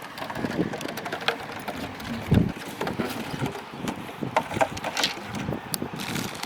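Irregular clicks and knocks, with one heavier thump about two and a half seconds in.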